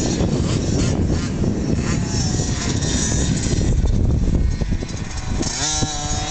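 KTM SX50 single-cylinder two-stroke minibike engine buzzing as the bike rides past on the dirt track. A heavy low rumble sits under it until about five seconds in, when the engine note comes through clearly and holds steady.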